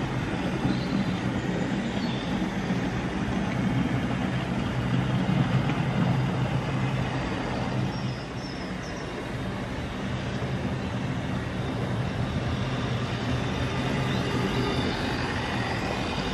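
Model trains running past on the track: a steady rumble of wheels with a low hum, dipping briefly about eight seconds in.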